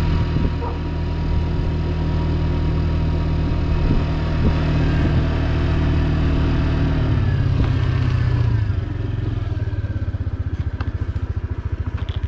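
Small motorcycle engine running under way, a steady low drone. About eight seconds in, the note drops and eases off, and the engine runs on with an even pulsing beat.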